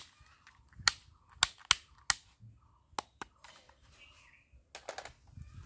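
Black plastic toy pistol clicking sharply as its mechanism is worked in the hands, about eight separate snaps at uneven intervals.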